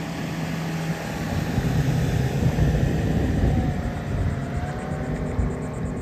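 An engine passing by, growing louder to its loudest about halfway through and then easing off.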